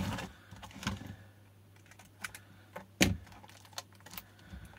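Scattered clicks and knocks of a battery pack's plastic casing and end cap being handled on a workbench mat, with one louder knock about three seconds in.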